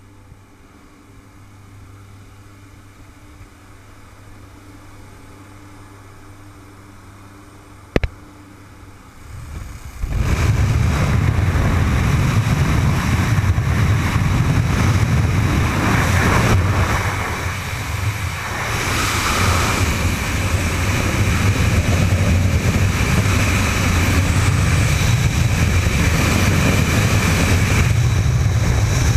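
Muffled steady drone of a jump plane's engine inside the cabin, with a sharp click about eight seconds in. About ten seconds in, a sudden loud rush of wind and engine noise takes over as the door opens, and it carries on as the wingsuit flyer climbs out and exits into freefall.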